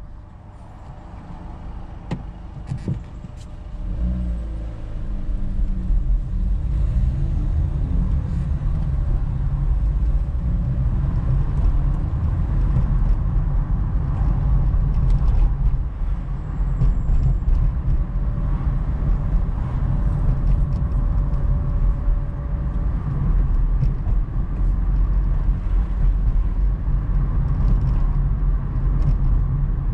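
Car engine and tyre noise heard from inside the cabin: quiet while stopped at a traffic light, with a few clicks about two to three seconds in, then rising about four seconds in as the car pulls away into a steady low rumble while driving.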